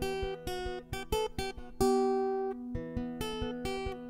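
Acoustic guitar picking an instrumental passage of single plucked notes, with a fuller chord rung out about two seconds in.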